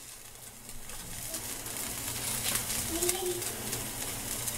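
Noodles sizzling in water in a hot frying pan, the hiss building after about a second, with light clicks of metal tongs against the pan as the noodles are broken up. A faint short call sounds about three seconds in.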